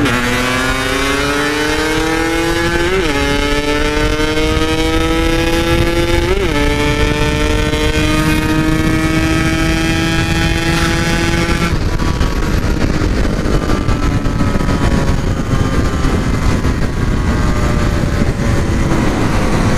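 Yamaha RX-King 135 cc two-stroke single on a standard-style packed muffler, accelerating hard with its pitch climbing steadily, with quick gear changes about 3 and 6.5 seconds in. About twelve seconds in the throttle eases and it runs on at a steadier, lower note, with wind rumbling on the microphone.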